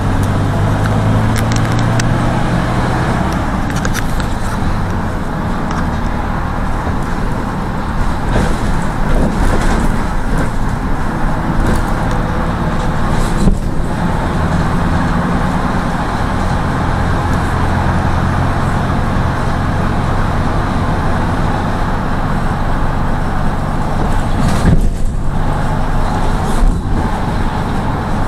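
Inside a moving route minibus: the engine runs at a steady cruise under constant road and tyre noise, with a slight rise and fall in engine pitch in the first few seconds and a few brief knocks from the cabin.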